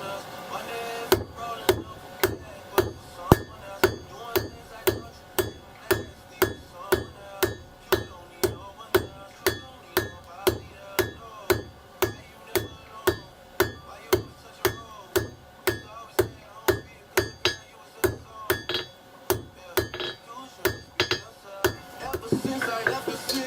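Blacksmith's hand hammer forging steel on a South German double-horn anvil: a steady rhythm of about two ringing blows a second, with a brief pause near the end.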